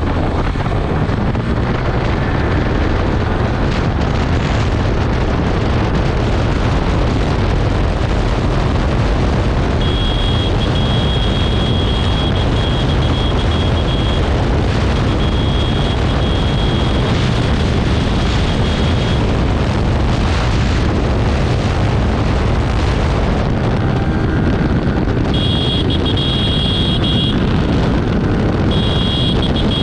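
Yamaha R15 V3 motorcycle's 155 cc single-cylinder engine pulling hard as the bike accelerates up through the gears to fifth, under heavy wind rush on the microphone. A high steady tone comes and goes several times in the second half.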